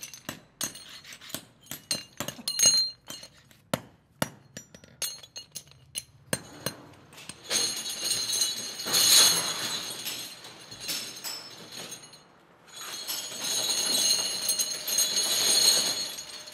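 Aluminium brake-shoe castings clinking as they are handled. About six seconds in, a dense metallic clatter starts as the castings pour into a perforated machine drum and tumble there. It dips briefly and then carries on.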